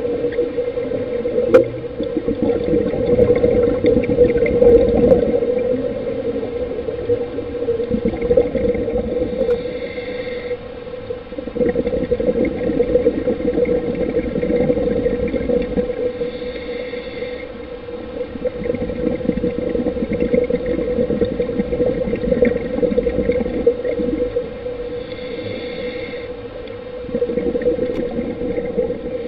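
Underwater sound picked up by a diver's camera during a reef dive: a steady hum, with rushes of scuba regulator breathing and exhaled bubbles swelling and fading every several seconds.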